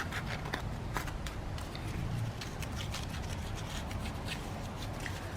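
Paper being worked by hand: faint rubbing and scrunching with scattered small clicks, as a piece of paper is trimmed or handled.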